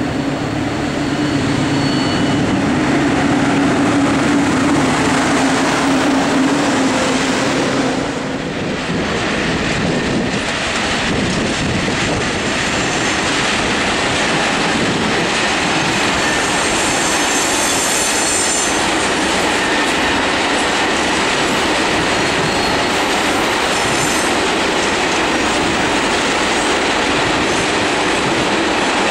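A yellow rail maintenance vehicle approaching with a steady drone, then, from about eight seconds in, a long container freight train passing close, its wagons rumbling and clattering over the rails with a faint high wheel squeal about halfway through.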